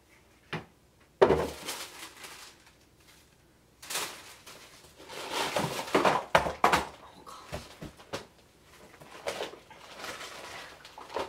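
A cardboard box being opened and unpacked by hand: a sharp thump about a second in, then rustling and crinkling of clear plastic packaging in several bursts.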